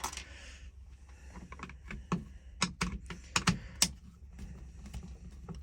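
Phillips screwdriver backing screws out of a plastic power-tool housing: irregular light clicks and taps, with a run of sharper clicks around the middle.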